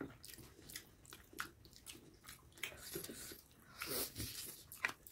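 Eating sounds: faint chewing and small mouth clicks, with a louder bite into a fried chicken lollipop about four seconds in.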